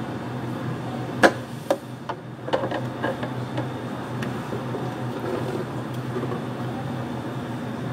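A metal spoon knocking against plastic cups several times, sharp clicks between about one and three seconds in. A steady low hum of cafe equipment runs underneath.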